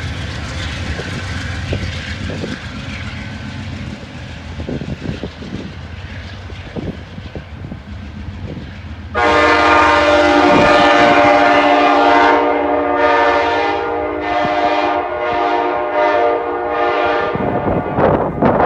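A departing Hartford Line train rumbles away with wheel clacks that fade. About nine seconds in, its multi-tone horn sounds a sudden long blast of about three seconds, then a quick string of about seven short toots: a rear hornshow.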